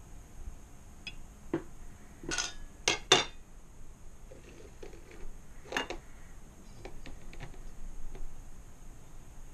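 Glass jars and a small metal mesh strainer clinking and knocking against each other and a plate as they are handled. A cluster of sharp knocks comes between about one and a half and three seconds in, the loudest near three seconds, another knock near six seconds, then a few lighter ticks.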